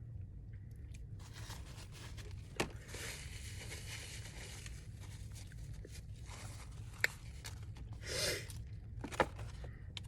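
Close-up eating sounds of Popeyes fried chicken: meat and crispy skin being torn and chewed, with a few sharp wet clicks.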